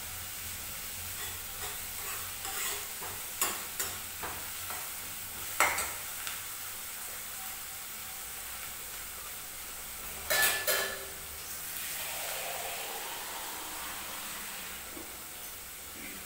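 Chopped onion frying in oil in a steel pan on a gas burner, a steady sizzle for a dal tadka. Sharp clicks break in now and then, the loudest about ten seconds in.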